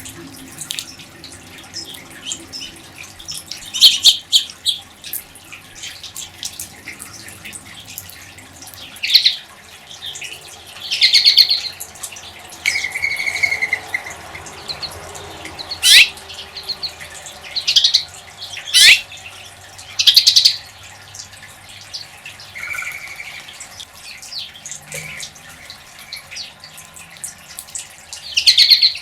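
Corvids calling: about a dozen loud, separate calls spread across the span, with gaps of a second or more between them.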